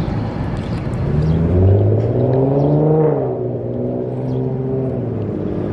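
A car engine on the street accelerates: its pitch rises from about a second in, peaks near three seconds, then eases off, over a steady low traffic rumble.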